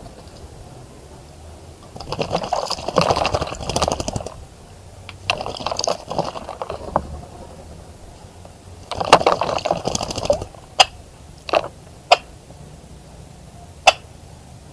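A bird splashing in a birdbath, in three bursts of splashing about two, five and nine seconds in, followed by a few short sharp ticks.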